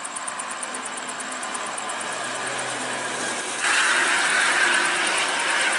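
Toll-road traffic with a coach bus driving past. About three and a half seconds in, the sound suddenly gets louder and turns into a steady hiss.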